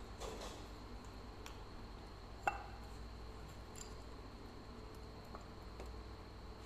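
Kitten eating dry kibble from a ceramic bowl: faint crunching and small clicks of food against the bowl, with one sharp clink about two and a half seconds in. A steady low hum runs underneath.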